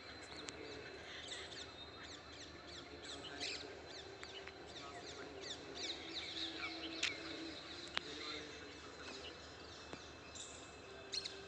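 Small birds chirping in many quick, high, downward-sliding notes, with two sharp clicks near the middle.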